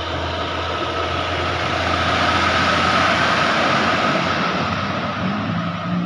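Pertamina fuel tanker truck driving past, its engine and road noise swelling to a peak about halfway through and then fading. A low steady tone comes in near the end.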